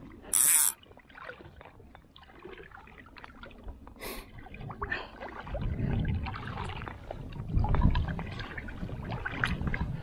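Water sloshing and gurgling. A brief sharp hiss comes just after the start and another about four seconds in, and the water sound grows louder in the second half.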